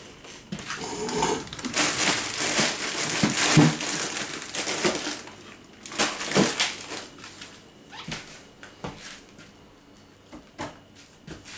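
Plastic food packets crinkling and rustling as they are packed into a kitchen drawer, with light knocks and clicks of items going in. It thins to a few scattered clicks in the last few seconds.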